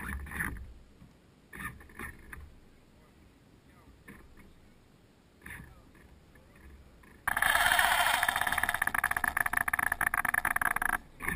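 Radio-controlled yacht's sail-winch servo running hard for about three and a half seconds as the boat tacks and the boom swings across. It starts suddenly about seven seconds in and cuts off near the end. Before it there are a few brief splashes against the hull.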